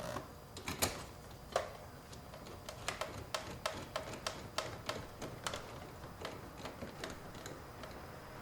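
Irregular light clicks of a hand tool driving a small Torx screw into the instrument cluster's mounting, two or three a second through the middle and thinning out toward the end.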